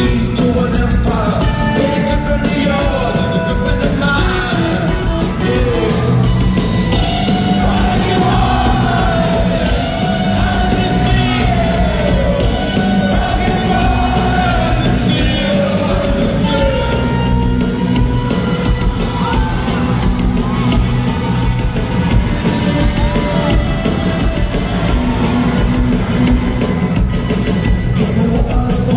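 Rock band playing loud and live, with a lead vocal singing over guitars and drums, heard from within the crowd in a large concert hall.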